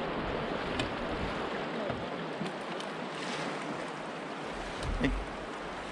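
Steady rush of river current moving around a paddled kayak, with a few faint clicks and a low bump about five seconds in.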